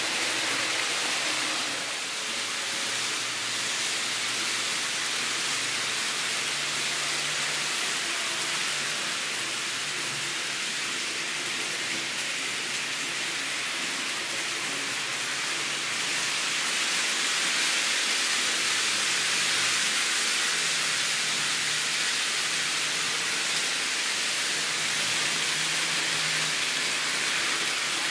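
Steady hiss with a faint low hum underneath that shifts in pitch a few times, from an N scale JR 313 Series model train running along the layout's track.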